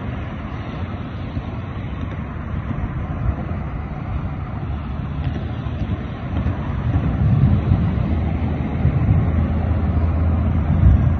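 Thunderstorm at night: wind rushing over the microphone, with a low rumble of thunder building from about six seconds in and growing louder toward the end.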